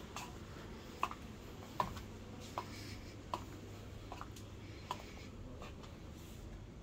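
Footsteps on a tiled shop floor, a short click about every 0.8 s at a walking pace, fading out after about five seconds, over a faint low hum.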